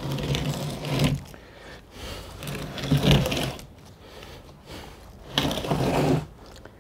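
Wooden pallet dragged out over a concrete floor in three hard pulls, each a scraping rumble lasting about a second.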